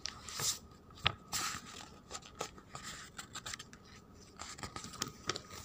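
Faint scattered clicks and light rustling, with one sharper click about a second in.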